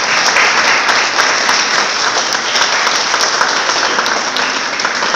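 Seated audience applauding: steady, dense hand clapping.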